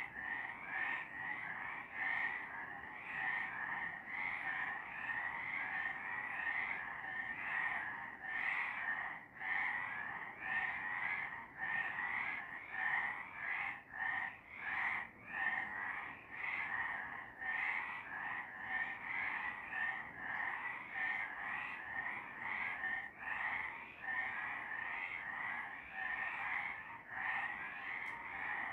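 A chorus of several frogs calling at night, many overlapping pulsed calls that keep up without a break, rising and falling about once or twice a second.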